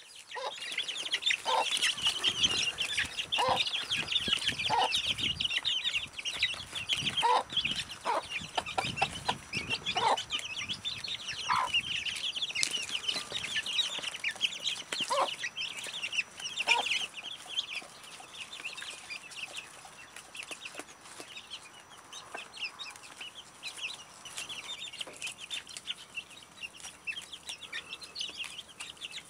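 Chicks peeping constantly in quick high chirps while a mother hen gives a low cluck now and then, as they peck at bok choy and grain. The hen's clucks come about ten times in the first half, and the peeping grows a little softer after that.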